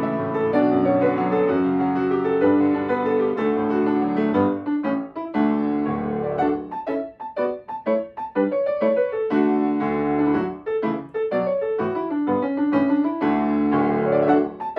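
Solo piano playing a new-age piece, held chords alternating with passages of short, detached notes.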